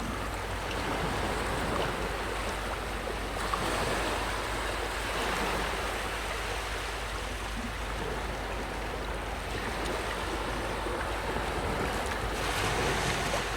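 Ocean waves washing against the shore in a steady surf wash that swells and eases every few seconds, with a larger surge near the end.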